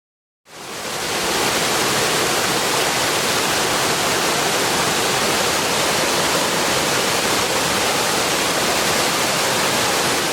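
Waterfall: a steady, even rush of falling water that fades in about half a second in.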